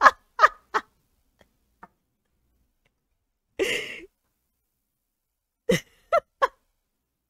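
A man laughing in short bursts: a few quick laughs at the start, a breathy sigh-like exhale in the middle, and three more short laughs near the end, with dead silence between.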